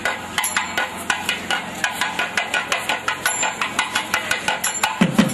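Procession drums beaten with sticks in a fast, steady rhythm of sharp strikes, about five a second; deeper drum beats join near the end.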